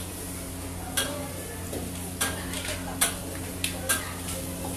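A metal ladle or spatula clanking and scraping against a wok as thick Hokkien mee noodles are stir-fried over a high gas flame, with frying sizzle. Several sharp clanks come at irregular intervals over a steady low hum.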